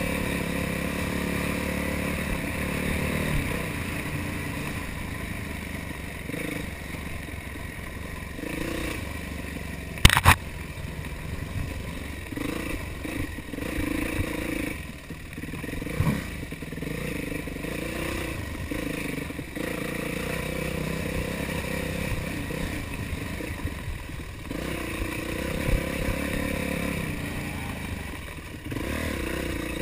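Yamaha YZ450F's single-cylinder four-stroke engine revving up and down as the dirt bike is ridden hard along a rough trail, with rattling and scraping from the bike over the ground. A sharp knock about ten seconds in is the loudest sound.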